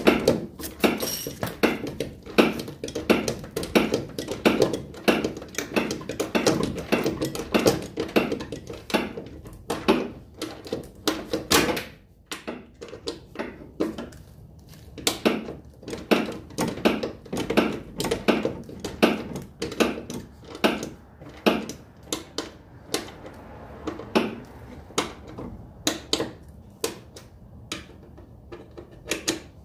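Metal hand tools clicking and clinking against car suspension hardware during front strut work: sharp, irregular metallic clicks and knocks, a few a second, with a brief lull about twelve seconds in.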